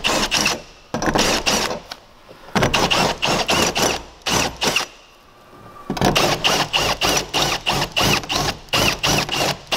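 Cordless drill turning a step bit in a punched hole in a van's sheet-metal roof, deburring the edge with light pressure: rapid repeated rasping of the bit against the metal, about four strokes a second over the drill's whine. It comes in short runs with brief stops, and a longer pause in the middle.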